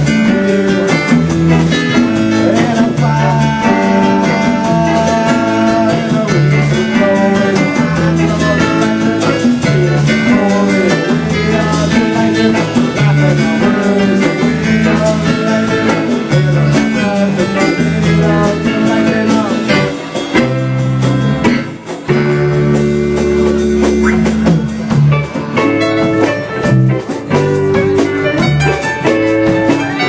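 Live band music: electric guitar, keyboard and drum kit playing together, with a brief drop in loudness about two-thirds of the way through.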